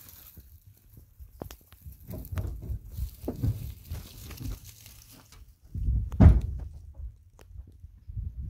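Dry grass rustling and crunching in irregular bursts as it is disturbed, with a few sharp crackles and a loud thump about six seconds in.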